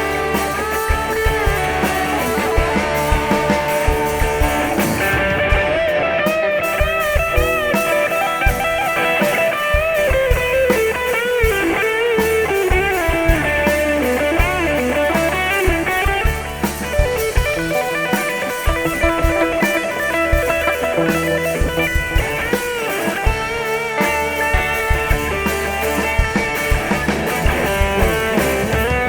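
Live band playing an instrumental passage through a stage PA: electric lead guitar with bending, wavering notes over drums and bass guitar.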